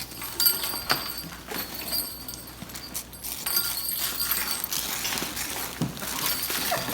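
Rustling and crinkling of gift packaging being handled, with scattered light clicks and knocks.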